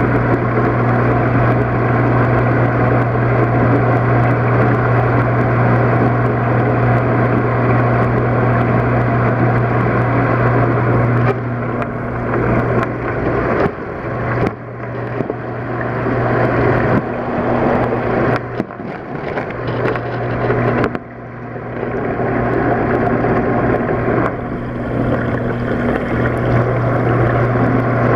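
Steady low hum of a running motor over a broad noise, interrupted several times in the second half by brief drops and small knocks.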